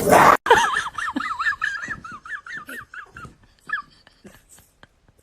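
An animal whining in a high, rapidly wavering pitch for about three seconds, after a short loud burst of noise at the very start. Near the end there is a run of soft, regular clicks, about three a second.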